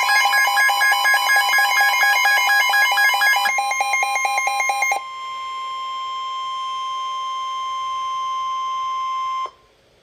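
Emergency Alert System warning tones on weather radio: a steady, high alarm tone with a fast, chattering pulse pattern over it for the first few seconds. The alarm tone then holds alone and cuts off abruptly just before the end, signalling that a warning message follows.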